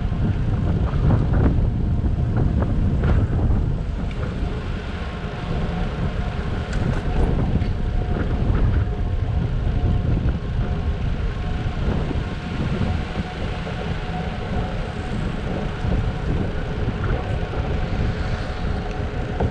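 Steady wind rush on the microphone and road rumble from a bicycle riding along an asphalt road.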